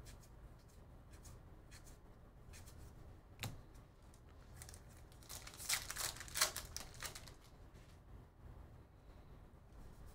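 A baseball card pack wrapper being torn open and crinkled by hand: a cluster of crackling tears about halfway through, the loudest part. Around it are soft clicks of cards being flipped through, with one sharper click about a third of the way in.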